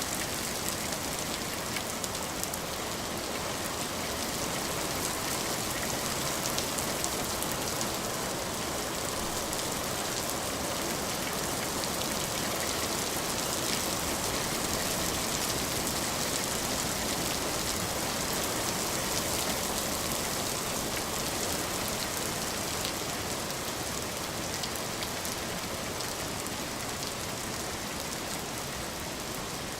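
Steady rainfall: a dense, even hiss of rain with countless fine drop ticks, holding the same level throughout.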